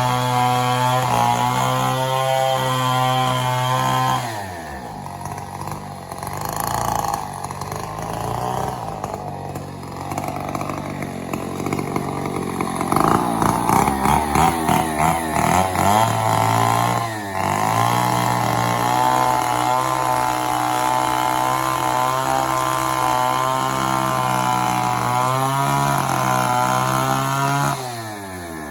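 Two-stroke chainsaw felling an old mahogany tree, held at high revs. The revs drop about four seconds in and pick up through the middle with a run of quick throttle blips. The saw then holds steady high revs again for about ten seconds before dropping back near the end.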